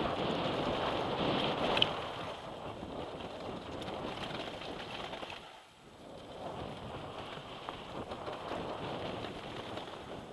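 Wind rushing over a helmet camera's microphone with tyres rolling and rattling over a dirt and gravel mountain bike trail at speed. There is a sharp click about two seconds in, and the noise dips briefly just past halfway.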